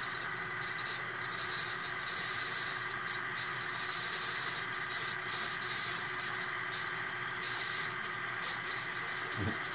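Steady mechanical hum with a hiss, holding several even tones without change: a small electric machine running.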